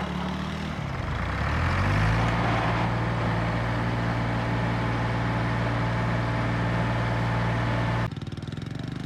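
Engine running as a 70cc motorcycle tows a diesel tractor in gear to bump-start it and clear an airlock in its fuel system. The pitch rises about a second in, then holds steady, and the sound cuts off suddenly near the end.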